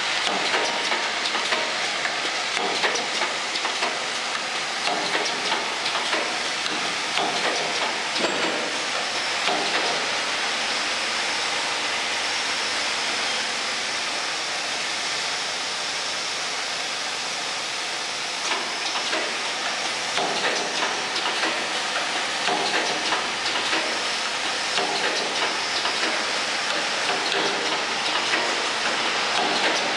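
Clothes-peg assembling machine running: its vibratory bowl feeders make a dense, steady rattle and clatter of parts, with fine rapid clicking throughout. It runs a little smoother for a few seconds midway.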